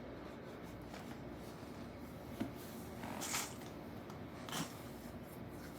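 Small handling noises at close range: a light click, then two short rustles, like a googly-eye sticker being peeled and pressed on.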